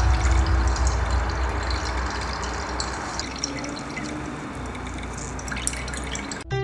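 Liquid bubbling and fizzing in a glass beaker: a watery hiss with faint fine crackles that slowly fades, cut off suddenly near the end.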